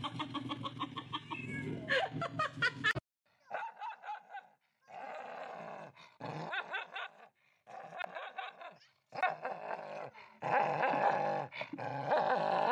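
A dog vocalizing in a string of short clips that start and stop abruptly, one after another.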